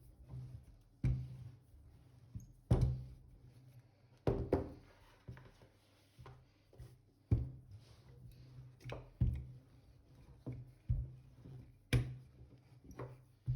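Irregular thuds and knocks on a work surface, roughly one every second or so, with some louder than others, from hands-on kitchen prep at a counter.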